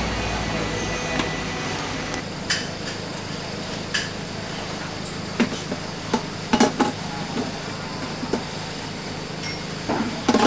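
Scattered sharp knocks and clinks, some in quick pairs, of cups, glasses and utensils being handled while iced coffee is made, over a steady low hum.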